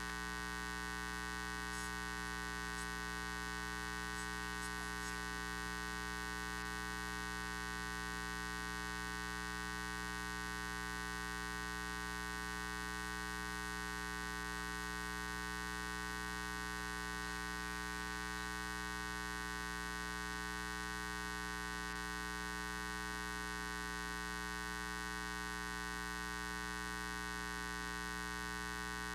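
Steady electrical mains hum: an unchanging buzz with many overtones. A few faint ticks come about two to five seconds in.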